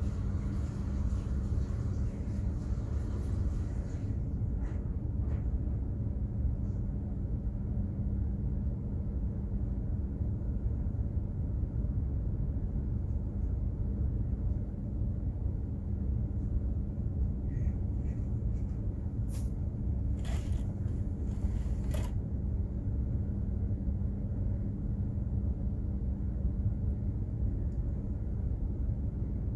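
Container ship's engine and machinery giving a steady low drone with a constant hum, and a few faint ticks a little past halfway.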